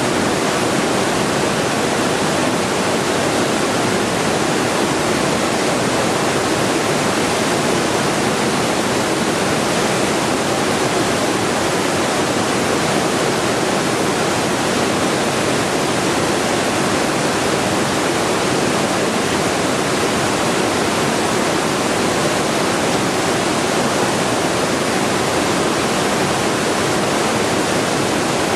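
Sleep-aid white noise: a steady, unchanging rushing hiss, heaviest in the low-middle range, with no breaks or events.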